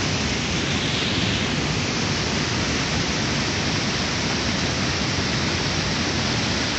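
Steady, even hiss of falling monsoon rain and rushing water, with no breaks or distinct events.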